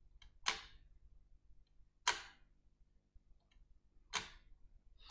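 Large metal demonstration model of a Swiss lever escapement ticking as it is worked by hand. There are three sharp ticks about two seconds apart, a fainter click shortly before some of them, each tick as an escape-wheel tooth drops onto a pallet of the swinging pallet fork.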